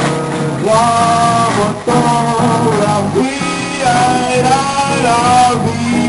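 Jazz music playing, with guitar and a melody line over a walking low bass.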